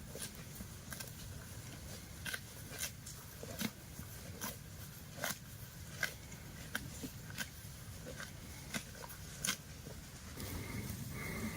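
Cattle grazing: grass being torn off in sharp rips, roughly one bite every second or a little faster, with chewing between.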